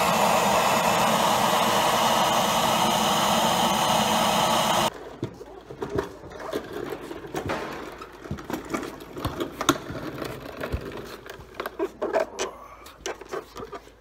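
Electric heat gun blowing steadily on a grease zerk that won't take grease, to free it; it cuts off abruptly about five seconds in. After that come scattered light clicks and knocks.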